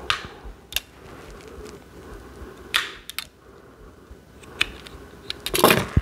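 Scissors snipping the bracelet's beading string, with small clicks of handling the metal clasp and beads. Several sharp snips and clicks are spread through, the loudest near the end.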